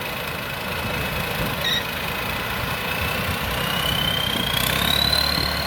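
Combine harvester's 260 hp diesel engine running steadily. A thin high whine rises in pitch about two-thirds of the way through and then holds, as the machine speeds up.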